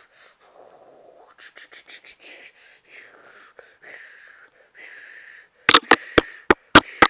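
Soft breathy hissing close to the microphone. Then, from about a second and a half before the end, a quick run of loud, sharp knocks and clicks from a hand handling the camera.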